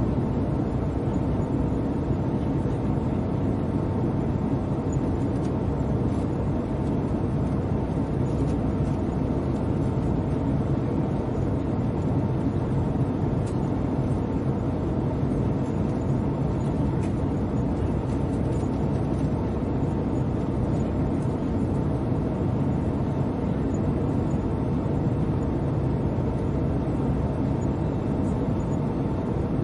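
Airliner cabin noise in flight: a steady low drone that holds an even level throughout.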